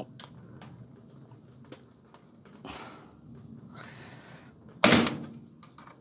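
Pliers working a wire's spade connector off the terminal of a clothes dryer's power switch: faint clicks and rustling, then one sharp thunk about five seconds in.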